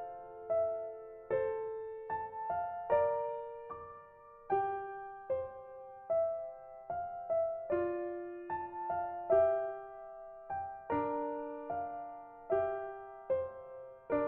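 Soft piano music: a slow, gentle melody of single notes and chords, each struck note fading away.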